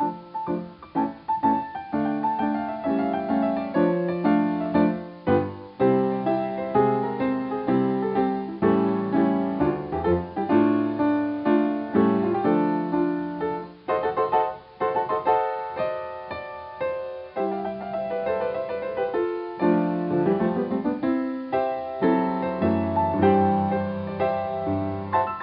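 Piano music: a continuous run of notes and chords.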